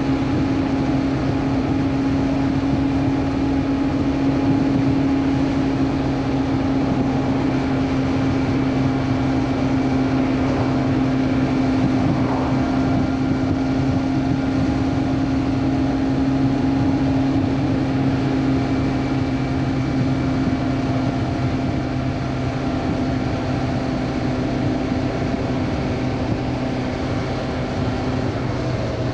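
Honda CB400 Super Four's inline-four engine running at a steady speed while riding, a constant hum that holds one pitch throughout.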